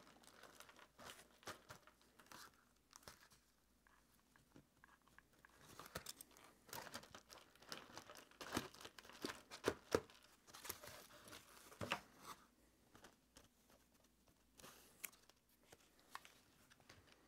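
Faint crackling and clicking of small painted plastic scrap pieces shifting and catching as a hot-glued, foil-covered base is rolled across the pile, with crinkling foil; the clicks come thicker and louder through the middle.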